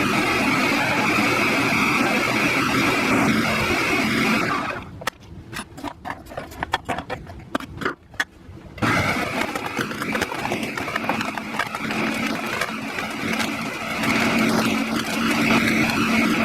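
Blender motor running steadily, blending. It stops about four and a half seconds in, leaving a few seconds of scattered clicks and taps, then starts again about nine seconds in and keeps running.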